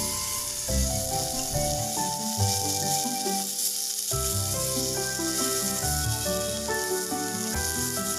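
Instrumental background music with held notes changing in steps, over the steady sizzle of neem flowers and potato frying in a miniature pan.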